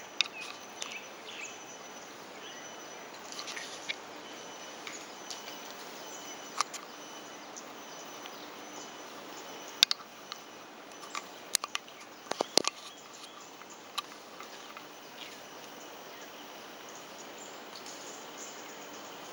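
Outdoor ambience under a tree canopy: a steady background hiss with faint high chirps, broken by scattered sharp clicks and knocks, the loudest about ten seconds in and a cluster around twelve seconds.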